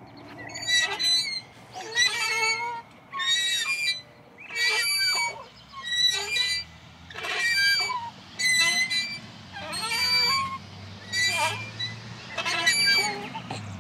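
Playground swing squeaking rhythmically, about one squeak every second and a quarter, as it swings back and forth.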